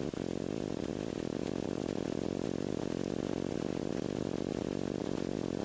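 Flex-wing microlight trike's engine and propeller running steadily in flight, an even drone that holds constant pitch throughout.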